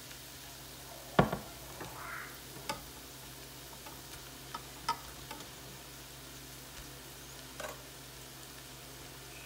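Cooked white rice being spooned into a pot of frying shrimp and mixed vegetables over a low sizzle, with a few sharp utensil knocks, the loudest about a second in.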